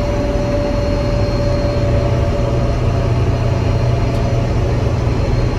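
Farm tractor's diesel engine running steadily, a low rumble with a steady whine over it.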